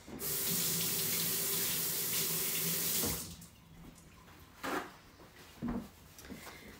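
Kitchen faucet running into the sink for about three seconds as a zester is rinsed under it, then turned off abruptly. Two short knocks follow.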